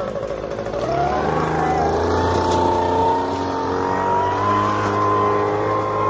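Handheld two-stroke gas leaf blower revving up about a second in, then running steadily at high speed.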